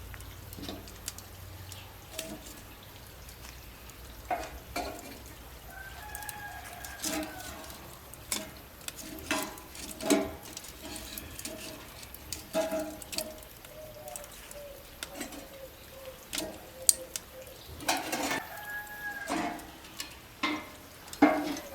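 Chickens calling, with a few drawn-out calls, over scattered sharp knocks and clicks.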